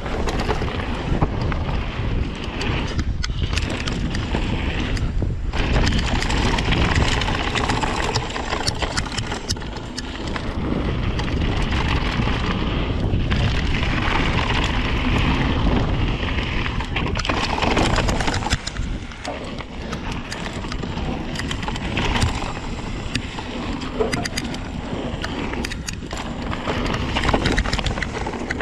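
Rocky Mountain Slayer full-suspension mountain bike ridden fast down a dirt trail: a steady rush of tyre noise and wind on the microphone, broken by frequent clacks and rattles as the bike hits roots and rocks.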